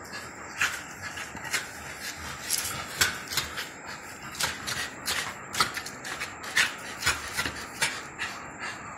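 A dog biting and tugging at a wooden stick: irregular sharp clicks and scrapes, roughly two a second.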